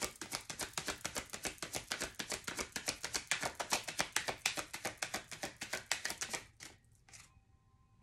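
A tarot deck being shuffled by hand: a quick, even run of card slaps, several a second, that stops about six and a half seconds in.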